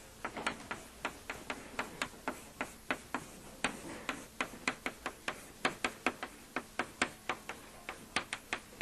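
Chalk tapping and scraping on a blackboard as someone writes: a quick, irregular run of sharp clicks, several a second.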